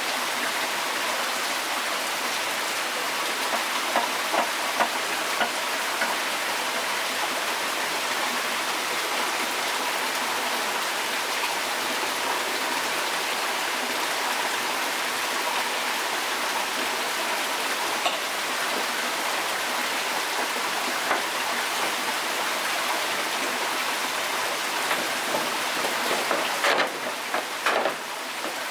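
Steady hiss of water, rain or running water, with a few sharp knocks scattered through it and a short cluster of knocks near the end.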